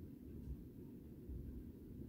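Faint low room hum, with a soft bump about half a second in.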